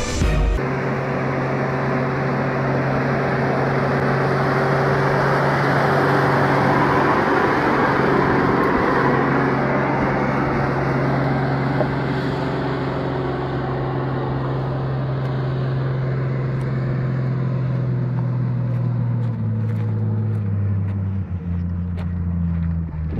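Diesel engine of a heavily loaded log truck running steadily under load, with a broad rush of tyre and road noise over it. Near the end the engine note drops in steps.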